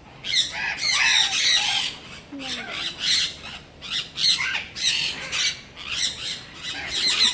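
Parrots squawking, a rapid run of harsh, shrill calls one after another.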